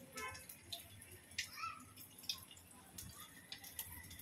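Faint wet squelches and small clicks of hands scooping and shaping soft lentil batter over a steel bowl, over a low steady hum.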